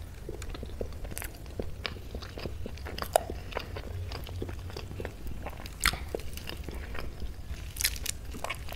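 Close-miked eating sounds: chewing a mouthful of soft boiled taro root and fingers working rice on a plate. Many small wet clicks and smacks, the sharpest about three and six seconds in, over a steady low hum.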